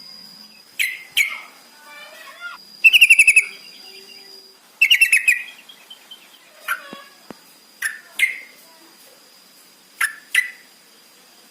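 Yellow-vented bulbuls (trucukan) calling: three bubbly, rapidly pulsed chattering phrases, then short sharp calls in quick pairs. A faint steady high tone sounds underneath.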